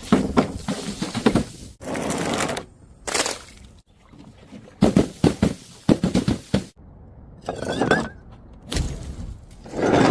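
A quick run of short, hard-cut clips of things being smashed and crushed: bursts of cracking, crunching and breaking, each cut off suddenly, with brief gaps between them.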